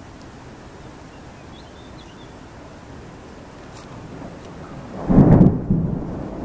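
Thunder: a low rumble builds and breaks into a loud clap about five seconds in, then fades over about a second. Under it runs a steady hiss of storm wind.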